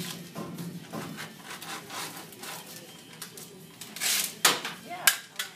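Rustling and handling noises with scattered light clicks, a louder rustle about four seconds in and a sharp snap about a second later.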